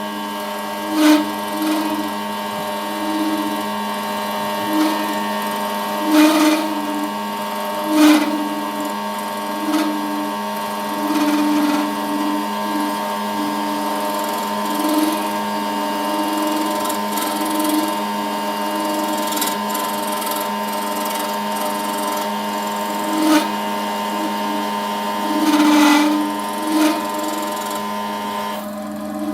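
Wood lathe motor running steadily, with a constant hum, and the spinning workpiece being worked, which gives irregular louder surges and a few short sharp sounds.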